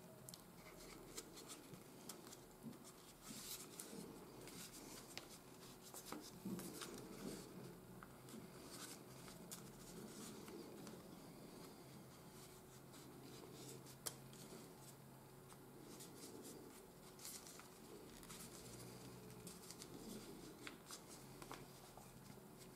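Faint rustling and creasing of office paper being folded by hand, with scattered small clicks and scrapes as a small metal tool presses and tucks the folds.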